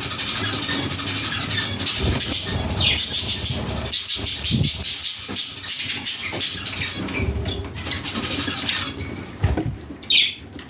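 Budgerigars chirping and chattering, a busy run of short high chirps and clicks, with one louder sharp call near the end.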